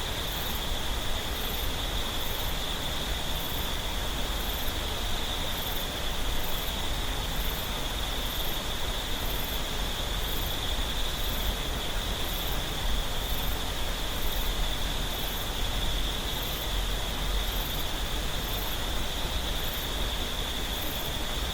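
Steady rush of a clear mountain stream flowing over rocks, with a steady high insect drone above it and a faint, very high chirp repeating a little faster than once a second.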